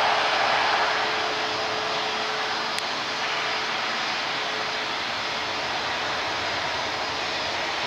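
Boeing 737-800's CFM56-7B turbofan engines as the airliner touches down and rolls out on the runway: a steady jet rush, loudest in the first second and then easing a little.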